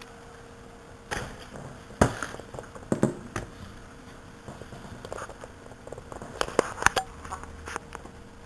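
Handling noise of a small Samsung SC-MX20 camcorder being turned in the hand with its rotating grip moved about: scattered plastic clicks and knocks with light rustling, the sharpest about two seconds in and a quick cluster of clicks around seven seconds.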